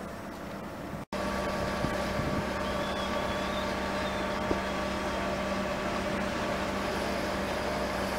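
A fire engine's engine running steadily at one speed, a constant hum. The sound drops out for a moment about a second in, then the hum comes in louder and holds.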